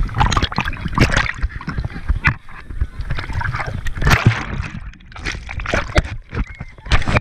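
Sea water splashing and sloshing against a camera held at the surface, with muffled gurgling as it dips under and comes back up. The splashes come irregularly, some sharp and close.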